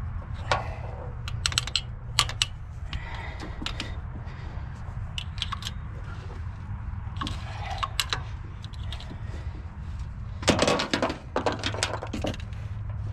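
Hand tools clicking and clinking against metal car parts in irregular short bursts, busiest about ten seconds in, during work to replace an engine thermostat. A steady low hum runs underneath.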